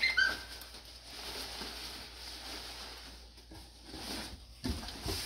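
Rustling and crinkling of a puffer jacket being handled, with a low thump near the end.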